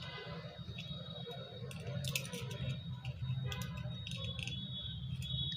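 Scattered light clicks and taps of hands handling wires against a battery while connecting a small LED lamp, over a steady low hum and a faint high whine.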